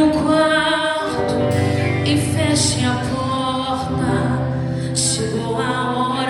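Gospel worship music: a voice singing held, wavering notes over sustained chords.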